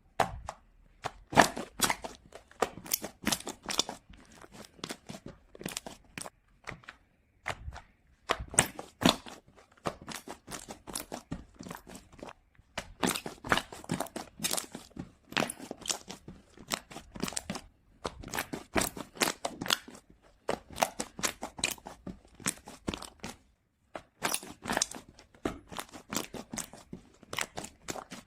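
Foam slime being squeezed and pressed by hand, giving dense runs of crunchy clicks and small pops, with a few brief pauses between runs.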